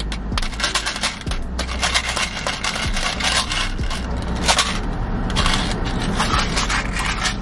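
Small plastic tub being handled, its lid twisted and worked in the hands, making a run of irregular clicks, rattles and scrapes.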